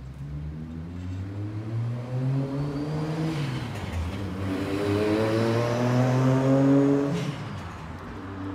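A motor vehicle's engine accelerating nearby, rising in pitch through a gear. The pitch drops at a gear change about four seconds in, climbs again, and the vehicle is loudest at about seven seconds, where the pitch falls once more.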